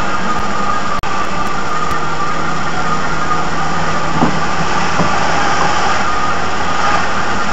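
Steady engine and road noise of a car being driven, heard from inside the cabin, with a brief dropout about a second in.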